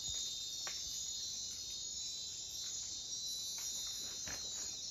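Night-time insect chorus of the tropical rainforest: many insects calling steadily in several high, shrill pitches at once, with a couple of faint clicks.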